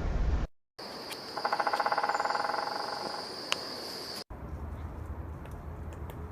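Woodpecker drumming: one rapid roll of strikes on wood, lasting about two seconds and fading out, over a steady high insect-like buzz. After a break come a few scattered light taps.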